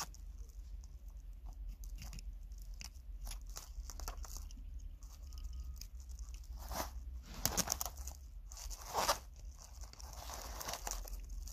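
Small plastic clicks and scraping as the retaining clips of a BMW Start/Stop Engine button are pried out of its surround ring, with a few louder crackles about seven to nine seconds in.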